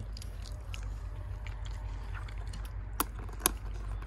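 Light clinks and taps of spoons against plates and bowls as people eat, with two sharper clicks about three seconds in, over a steady low rumble.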